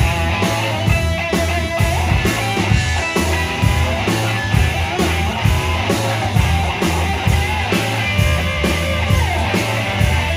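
Live rock band playing, with electric guitars over drums and bass keeping a steady beat.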